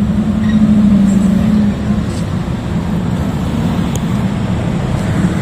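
A steady, loud low engine hum from a nearby motor vehicle running, with street traffic noise around it.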